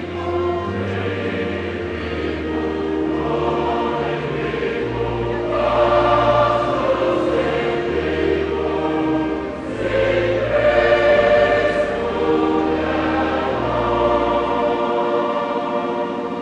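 Church choir singing a slow hymn in held chords, with a low bass line sustained underneath, rising to its loudest swells about six and eleven seconds in.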